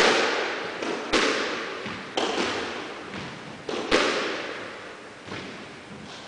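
Squash rally: sharp, echoing cracks of the ball being struck by rackets and smacking off the court walls, about one a second, with two strikes in quick succession near four seconds in.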